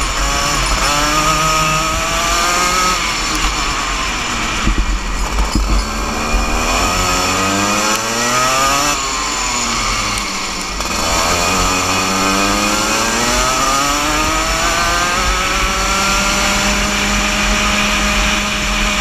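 Single-cylinder 125cc two-stroke Junior Max kart engine at race pace, heard from on board the kart. It climbs in pitch as it accelerates, dips briefly about three seconds in, falls sharply about nine seconds in under braking for a corner, then climbs again and holds steady near the end.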